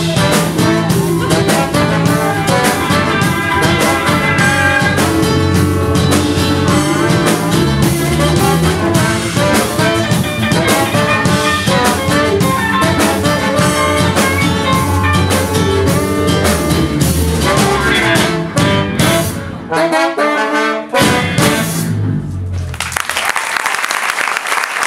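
Live reggae-ska band playing, with trombone and saxophone over guitar and drums. The music breaks into a few short hits toward the end, then stops, and the audience starts applauding.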